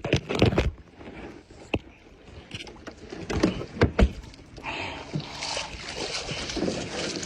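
Knocks and thumps on a kayak's hull, the hardest a little after halfway. In the second half a steady rough rustling and sloshing takes over.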